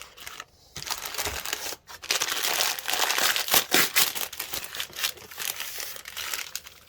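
Packing material crinkling and rustling as it is handled and pulled off, in dense, irregular crackles from about a second in until near the end.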